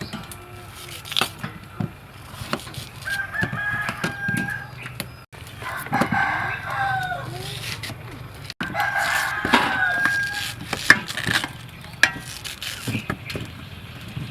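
A rooster crowing three times, each crow a long call, with scattered knocks and clicks around it.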